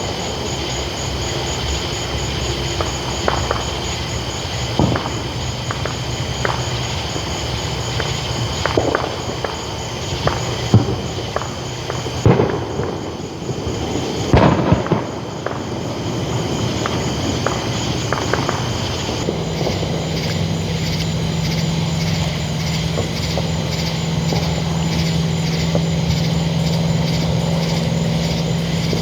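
Distant fireworks and firecrackers going off at irregular intervals: scattered sharp pops and booms, with a louder cluster about halfway through, over a steady high-pitched background drone. About two-thirds of the way in, a steady low hum starts and keeps going.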